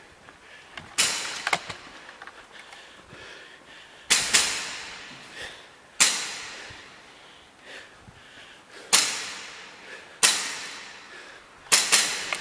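Airsoft guns firing single shots, about ten at irregular intervals, each a sharp crack with an echoing tail. There is a quick run of three shots near the end.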